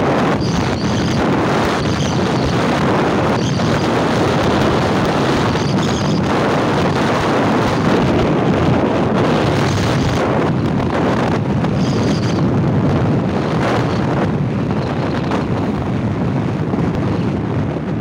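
Wind rushing over the microphone of a camera on a moving motorcycle, a loud steady rush with the bike's engine and road noise beneath it.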